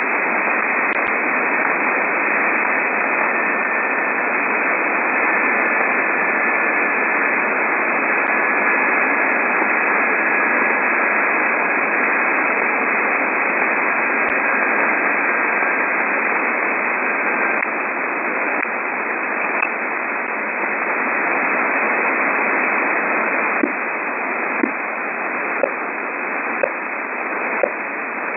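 Shortwave radio receiver tuned around 12.9–13.2 MHz, giving steady static hiss with random short pips or ticks of varying strength, the source of which is unidentified. A faint whistling tone slowly falls in pitch through the first half, and near the end the pips come about once a second.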